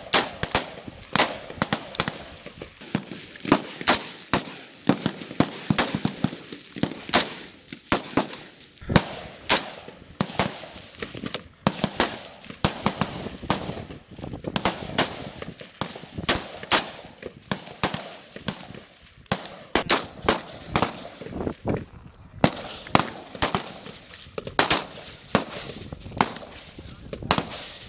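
Many rifles firing at once: an irregular stream of sharp shots, about three or four a second, some close together, without a break.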